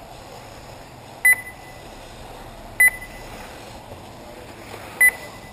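Three short electronic beeps at one high pitch, the second and third about one and a half and two seconds after the one before. These are typical of a race lap-counting system beeping as cars cross the timing line.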